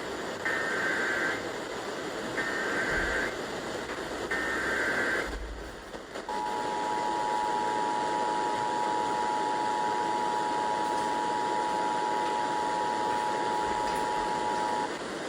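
Emergency Alert System activation over FM radio: three bursts of SAME digital header data, each about a second long with short gaps, then the two-tone attention signal (853 and 960 Hz sounded together) held steady for about eight and a half seconds, over a constant radio hiss. The header and tone announce a Child Abduction Emergency (Amber Alert) about to be read out.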